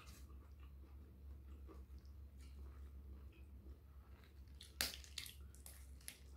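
Faint chewing and mouth sounds of a person eating close to the microphone. A short, louder crackle comes a little under five seconds in, with a couple of smaller ones just after.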